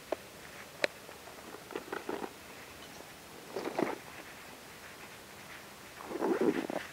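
Rustling and knocking from a fabric tackle backpack and the gear in it being handled, with a sharp click about a second in and a longer, louder rustle near the end.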